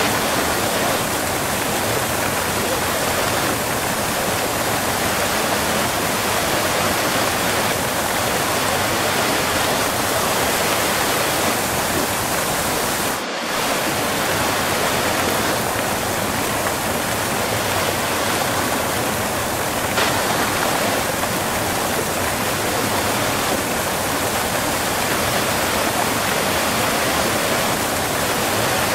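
Waterfall heard close up, a steady, loud rushing of falling water that dips briefly once a little before the middle.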